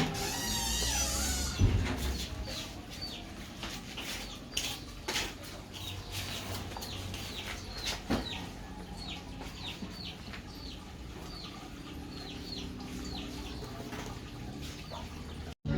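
Chicks peeping over and over in short, falling chirps, about two a second, with a few sharp knocks and taps in between. The sound cuts off suddenly near the end.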